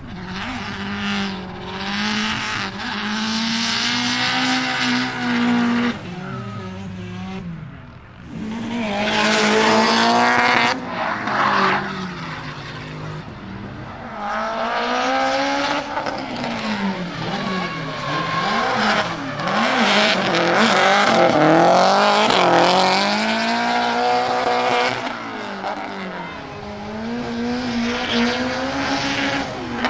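Turbocharged Subaru EJ20 flat-four in a rear-drive Impreza WRX STI drift car, fitted with an external wastegate and screamer pipe. The engine revs up and down over and over through the drift while the tyres squeal and skid.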